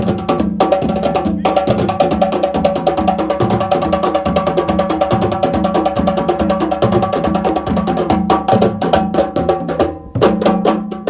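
Fast, dense African-style drumming with sharp, clicky strikes over sustained pitched notes. The playing drops away briefly about ten seconds in, then picks up again.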